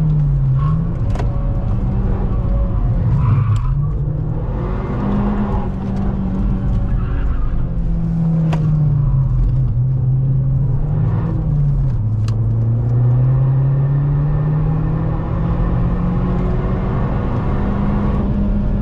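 Opel Astra OPC's four-cylinder engine working hard on track. Its note falls as the car slows for a corner around the middle, then climbs steadily toward the end as it accelerates past 6000 rpm. A few short sharp clicks sound along the way.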